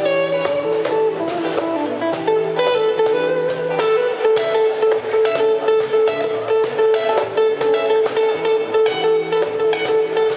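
Instrumental music with guitar over a steady, even beat, with no singing.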